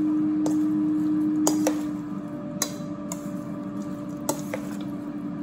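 An air fryer running with a steady hum, under about half a dozen light clinks of a metal spoon against a stainless steel mixing bowl as a pasta salad is tossed.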